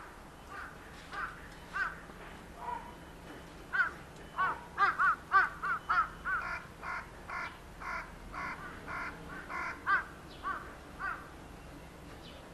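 A bird calling in a long run of short, harsh, repeated calls, scattered at first, then coming several a second and loudest about five seconds in before thinning out near the end.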